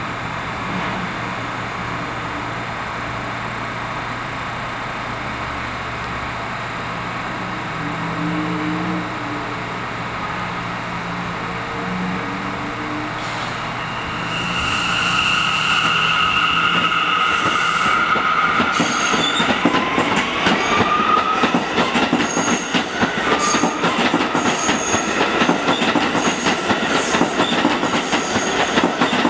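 Bombardier R179 subway train humming steadily at the platform, then pulling out about halfway through. Its propulsion whines in steady tones with one rising in pitch, and for the last third its wheels clatter rapidly over the rail joints.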